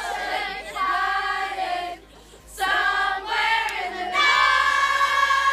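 A group of voices singing together in long held notes, breaking off briefly about two seconds in, then holding one long note from about four seconds in.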